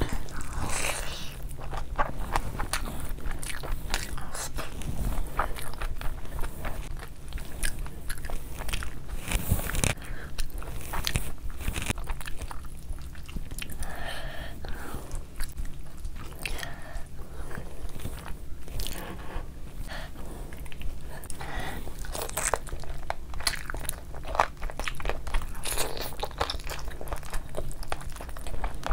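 Close-miked eating: chewing and biting on hand-fed mouthfuls of chicken biryani and chicken curry, with many irregular sharp wet clicks and crunches, over a low steady hum.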